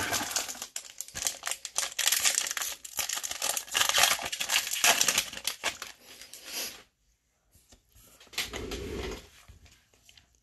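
Foil wrapper of a 2020 Bowman baseball card pack crinkling and tearing as it is opened, a dense crackle for about seven seconds. Then it goes quiet except for a brief, softer rustle of the card stack being handled near the end.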